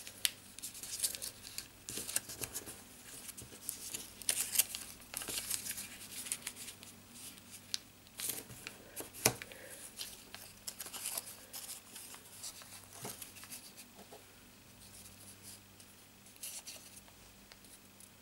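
Thin origami paper crinkling and crackling in the hands as it is folded and creased into a dove, with quick crisp snaps; one snap about nine seconds in is the loudest. The crackling thins out to occasional rustles over the last several seconds.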